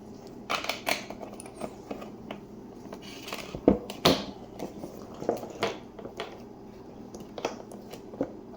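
Plastic refrigerator dispenser parts being handled and fitted back together: scattered clicks and knocks, the loudest two close together about four seconds in, over a steady low hum.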